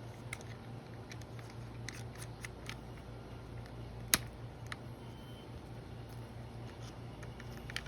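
Light scattered clicks and taps of small gun parts being handled, the Acetech Blaster's adapter and the airsoft pistol, with one sharp click about four seconds in, over a steady low hum.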